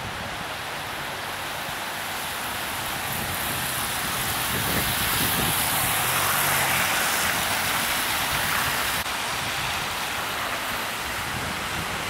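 Road traffic hissing on wet tarmac: a steady wash of tyre noise that swells for a few seconds in the middle and drops back suddenly about nine seconds in.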